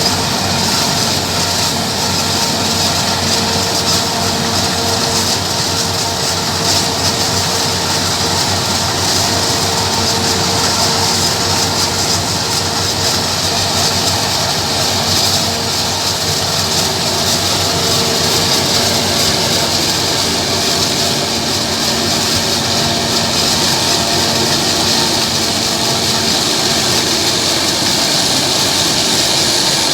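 Claas Jaguar self-propelled forage harvester running steadily while chopping crop for silage: a continuous machine drone with steady hum tones under a loud hiss.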